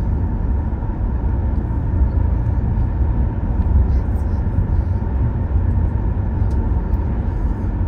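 Car driving at road speed, heard from inside the cabin: a steady low rumble of road and engine noise, with a faint steady tone above it.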